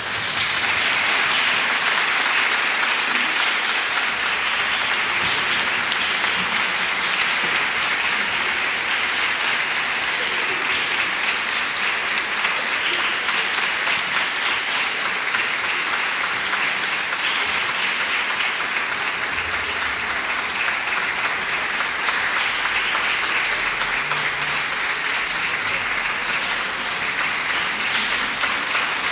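Audience applauding: dense, steady clapping from many hands that keeps up without a break.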